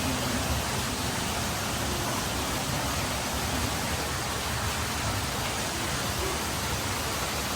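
Steady, even rush of falling water, as from a waterfall or rain-effect water feature.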